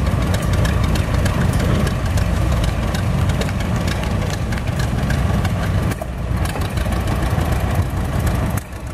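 John Deere tractor's two-cylinder engine running at low speed as the tractor drives past.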